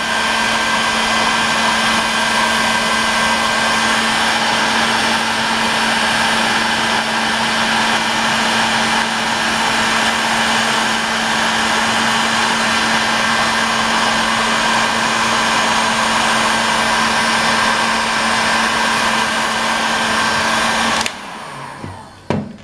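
Electric heat gun running steadily, its fan blowing hard with a steady low hum and a higher whine, while it shrinks adhesive-lined heat-shrink tubing over a wire splice. It cuts off near the end and winds down.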